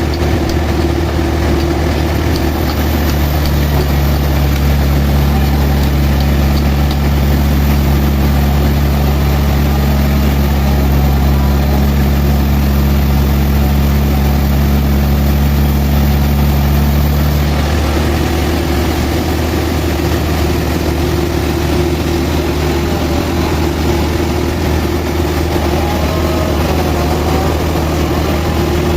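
Sawmill machinery running with a steady low engine hum. Its tone shifts about three seconds in and shifts back around seventeen seconds in.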